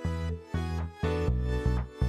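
Instrumental interlude of a gentle pop-style song with no singing: a steady beat of deep bass notes with sustained keyboard-like notes above them.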